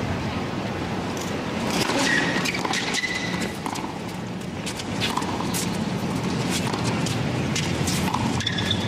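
Tennis rally on a hard court: sharp racquet strikes on the ball going back and forth, with a couple of short shoe squeaks, over the steady noise of a stadium crowd.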